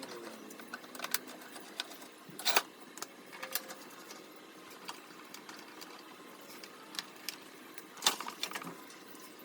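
Scattered light clicks and taps of small hard parts being handled, with louder taps about two and a half seconds and eight seconds in.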